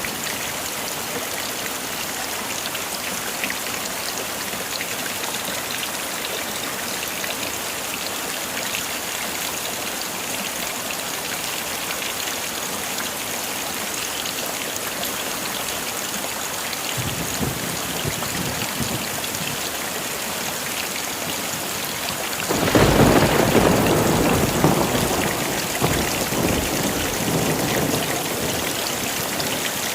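Heavy rain falling steadily. Past the middle a low rumble of thunder comes in briefly, then about three-quarters through a louder peal of thunder starts suddenly and rolls, fading over several seconds.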